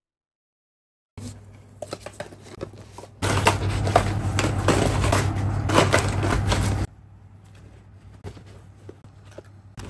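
Starting about a second in, rustling and crinkling with light clicks as small packaged items are handled and tucked into a suitcase's mesh pocket, with a low steady hum underneath. The handling is loud for about three and a half seconds in the middle, then turns quieter.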